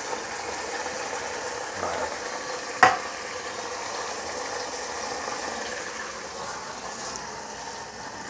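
Chicken and tomato sauce sizzling and bubbling in an open pressure cooker pot, a steady hiss, with one sharp clank about three seconds in.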